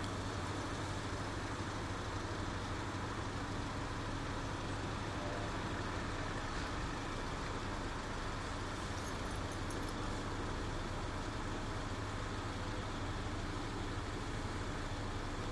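Heavy transport truck and escort vehicles running slowly at low revs: a steady low engine drone with road and traffic noise.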